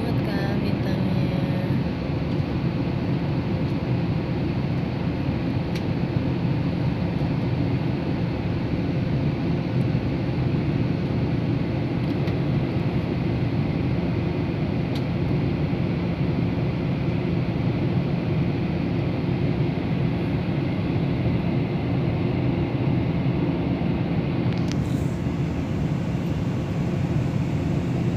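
Steady cabin noise inside a passenger aeroplane in flight: an even, low rush of engines and airflow that does not change.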